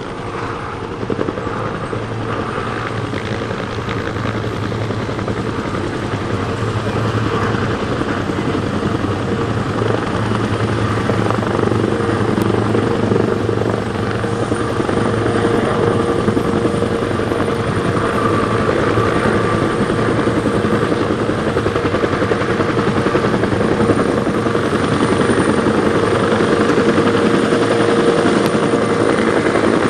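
Military helicopters flying low overhead: a steady rotor and turbine drone that grows gradually louder as they come closer.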